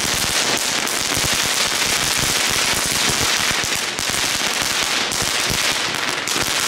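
Small Category 1 ground fireworks burning on pavement: a loud, dense, continuous crackle of many tiny pops as they spray sparks.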